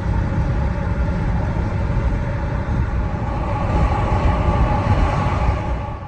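Loud, steady rumble of a heavy vehicle in motion, with a faint steady whine above it.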